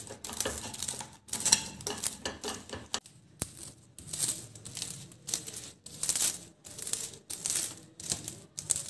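Caramel-coated popcorn rattling and crackling as a silicone spatula scrapes and spreads it across a cold marble slab, in short repeated strokes about one to two a second.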